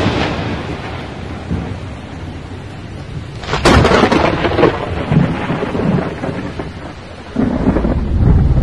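Thunder sound effect: a long decaying rumble, then a second sharp crack about three and a half seconds in that rolls on into rumbling. Near the end a deep low rumble swells in.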